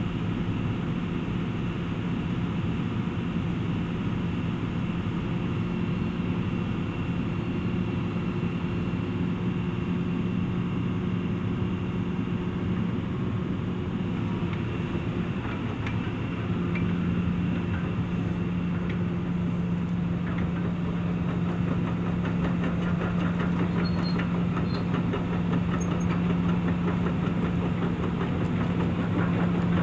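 Hitachi EX355 demolition excavator's diesel engine running steadily, getting a little louder about sixteen seconds in.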